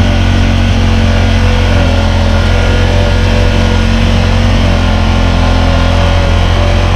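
Honda Talon side-by-side's 999 cc parallel-twin engine running at a steady cruise, a loud, even drone heard from inside the open cabin.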